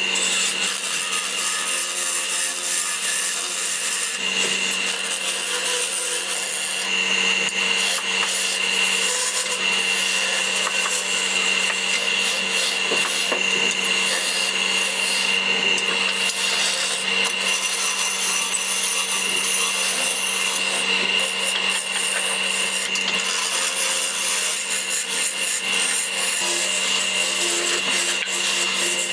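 Wood lathe running with a steady whine while a turning tool scrapes and cuts the spinning wood.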